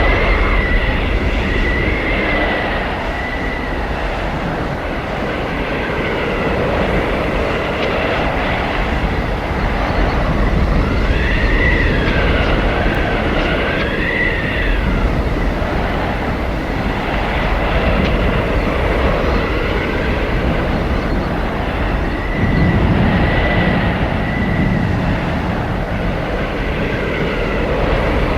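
Howling blizzard wind: a steady, deep rush of wind with thin whistling tones that waver up and down, strongest about halfway through.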